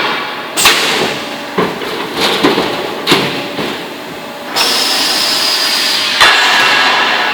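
Sheet-metal duct-making machinery at work: several sharp metallic bangs with a ringing tail, about a second apart at first. Then comes a steady compressed-air hiss for nearly three seconds, broken by one more bang.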